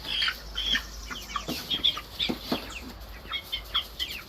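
A flock of young chickens peeping, with many short high-pitched calls overlapping continuously.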